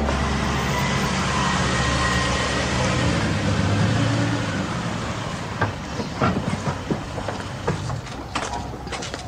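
A Toyota sedan drives up with a steady rumble and stops. About halfway through, scattered clicks and knocks follow as the driver's door is opened and someone climbs out.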